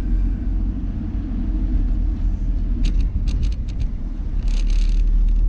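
Steady low engine and road rumble of a car being driven, heard from inside the cabin. A cluster of short clicks comes about three seconds in, and a brief hiss near the end.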